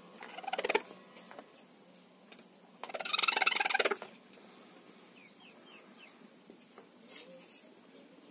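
Broody hen sitting on her eggs calling as a straw pokes at her: a short call at the start, then a louder call about a second long three seconds in, the protest of a hen that will not leave her nest.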